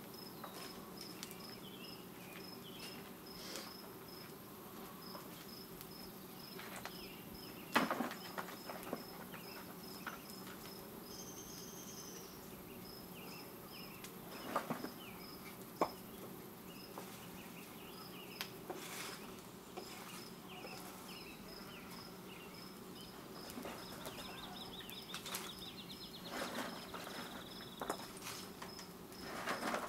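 Insects chirping in a steady, evenly spaced pulse, with a few sharp knocks scattered through, the loudest about eight seconds in.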